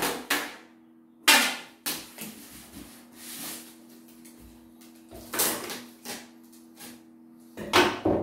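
Clear packing tape being pulled off the roll in short ripping bursts and wrapped round a stack of cardboard boxes, with the rustle of hands on the cardboard between pulls. A faint steady hum runs underneath.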